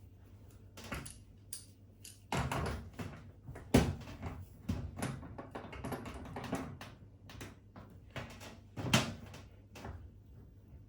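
Irregular knocks, clicks and scraping of hand tools working at the dishwasher's fixings, with the sharpest knocks about four and nine seconds in.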